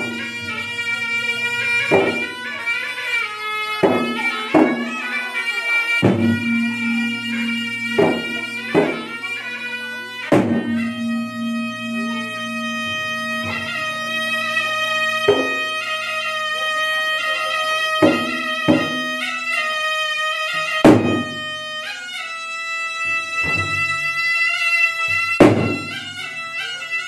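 A gendang drum ensemble: two large double-headed gendang drums beaten by hand, with loud strokes every second or two, under a continuous melody from a small shawm with a flared bell.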